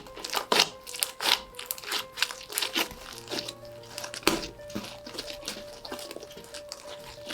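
Slime being squeezed and stretched by hand, giving many short crackles and squelchy clicks, over soft background music with held notes.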